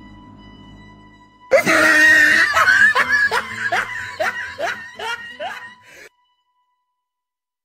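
A faint music drone, then about one and a half seconds in a loud burst of laughter: a run of repeated 'ha' strokes, about three a second, that fades over some four seconds and cuts off suddenly.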